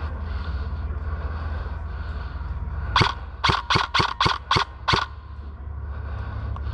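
Airsoft gun firing seven sharp shots in quick semi-automatic succession, about three or four a second, over a steady low rumble.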